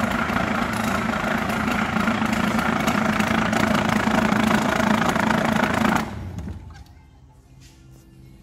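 Electric paper jogger running, vibrating a stack of paper: a loud, steady buzz with the rattle of the sheets. It cuts off about six seconds in and dies away over the next second.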